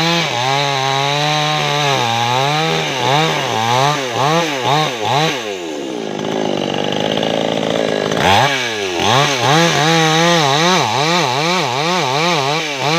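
Maestro Plus CS6500L two-stroke chainsaw running at a teak trunk's base, its engine pitch rising and falling over and over. Around the middle the pitch sags for about two seconds, as the chain bites into the wood under load, then climbs back.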